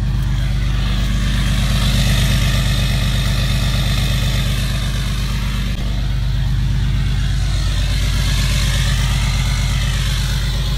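Cummins diesel engine idling steadily right after a cold start, a continuous low drone with a fast, even firing pulse.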